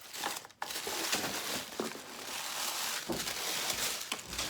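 Packaging being handled and crumpled, a busy, irregular crinkling with a short pause about half a second in.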